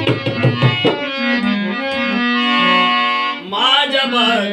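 Instrumental intro of a Marathi devotional song: a keyboard holds sustained chords over low drum strokes in the first second. A gliding, pitch-bending melody line comes in about three and a half seconds in.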